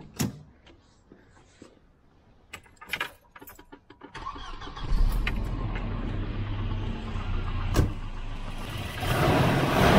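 A few sharp clicks and knocks, then about four seconds in a Volvo B230F four-cylinder engine starts and settles into a steady idle that grows louder near the end. This is its first start on a freshly fitted replacement distributor with the timing set by eye, and the owner hears piston slap from it.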